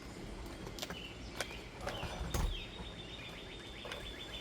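A few sharp clicks and knocks of a pry tool working under asphalt roof shingles, the loudest a thud about two and a half seconds in. A high, thin, fast-pulsing trill starts about halfway through and carries on.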